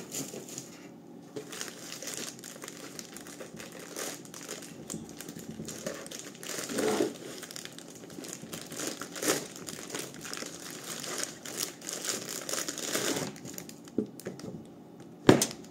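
Clear plastic air-cushion packaging crinkling and rustling as it is pulled off and handled around a boxed power supply, with a sharp knock near the end.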